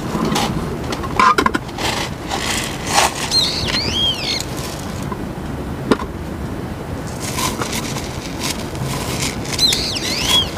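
Gravel topping poured from a plastic scoop and pressed in around a potted succulent: grit rattling in scattered clicks, with gloved hands rustling. A bird calls with short chirps that rise and fall, about three and a half seconds in and again near the end.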